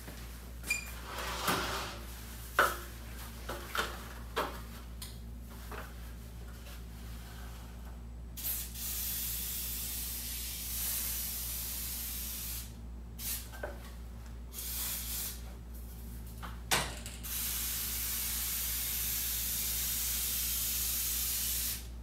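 Aerosol silicone lubricant sprayed along a garage door spring in two long, steady hisses of about four seconds each. A few knocks and clicks come earlier, from the ladder and can being handled.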